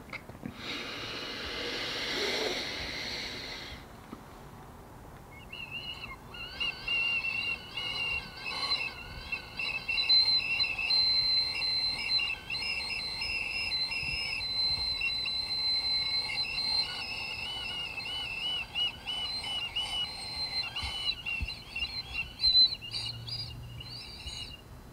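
A man's throat noise: a high, wavering, whistle-like warble held for about twenty seconds, wobbling quickly up and down in pitch. It is preceded in the first few seconds by a breathy rush of air.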